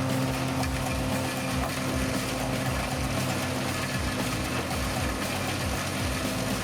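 A machine engine running steadily: a constant low hum with a hiss of mechanical noise over it.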